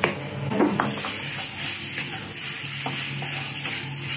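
Sauce bubbling and sizzling in a wok over a gas burner while a metal ladle stirs through it. A few sharp taps in the first second come from a can of pepper being shaken in.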